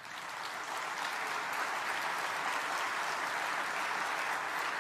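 Audience applauding: dense steady clapping that builds over the first second, then holds evenly.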